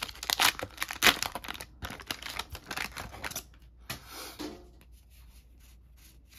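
Foil trading-card booster pack wrapper being opened and crinkled by hand: a dense run of sharp crackles for about three and a half seconds. A short soft rustle follows about four seconds in as the cards are pulled out, then only faint handling.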